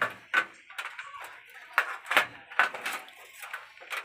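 Irregular light clicks and taps, about half a dozen, spaced unevenly: LED tester probes and leads being handled and touched down on the TV's LED backlight strips and metal back panel while checking the LEDs one by one.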